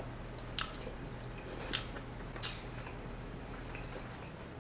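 A person chewing a mouthful of crispy fried chicken: a few sharp, short clicks about a second apart over a faint steady hum.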